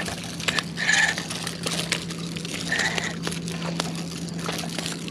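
A spinning reel being wound in, giving a steady low hum that stops near the end, with scattered clicks and scrapes from handling the rod.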